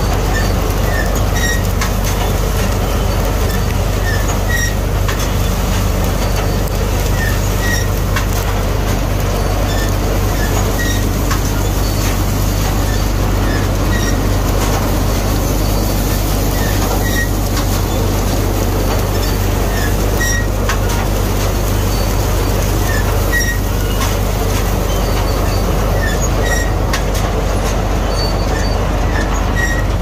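Punni Grain Cruiser combine harvester with a mustard-cutter header working at close range: a steady engine drone under the rattle of the header and threshing machinery, with short high squeaks now and then.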